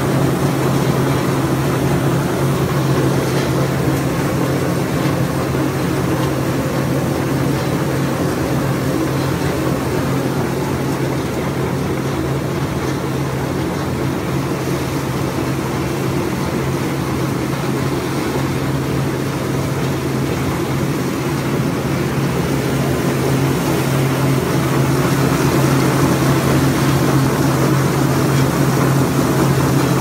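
Brush-roller ginger washing machine running steadily: a constant motor hum under the even churning noise of the rotating brush rollers and water spray working a load of ginger.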